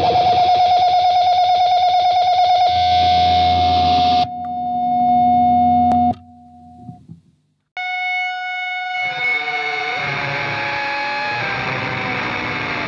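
1974 Fender Mustang electric guitar played through a 1979 Soviet Poltava fuzz-wah pedal with a distorted fuzz tone. A held note pulses rapidly for the first few seconds, then sustains and cuts off about six seconds in. After a short silence a new fuzzy note rings out and the wah sweeps its tone down and back up.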